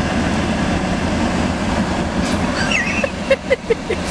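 Steady road and engine rumble inside a moving car's cabin. About three seconds in, a quick run of short, pitched, rhythmic sounds comes in over it, about five a second.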